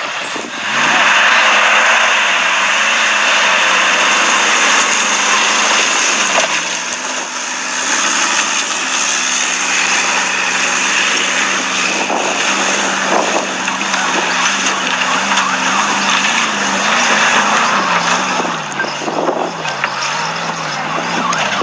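ZIBAR 4x4 off-road vehicle's engine running under load, its pitch holding steady, stepping up about a third of the way in and wavering up and down near the end, over a steady rushing hiss.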